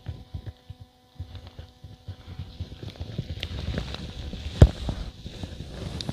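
Wind buffeting the microphone with an uneven low rumble, over rustles and small knocks of fishing rods being handled, with one sharp knock about two-thirds of the way in.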